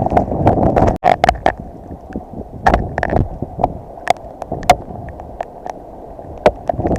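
Sea water sloshing and splashing with wind buffeting the microphone, dotted with short sharp splash clicks. Louder for about the first second, then quieter after an abrupt break.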